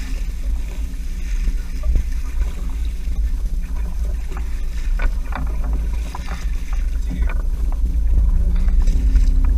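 A fishing boat's engine running steadily with a low rumble, with a scatter of light knocks and clicks around the middle from gear handled at the rail while the longline is hauled in.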